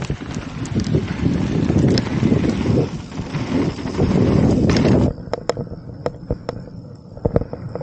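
Wind buffeting the camera microphone and tyres rumbling over a dirt trail as a mountain bike rolls down at speed. About five seconds in the rush drops away abruptly, leaving scattered clicks and rattles from the bike.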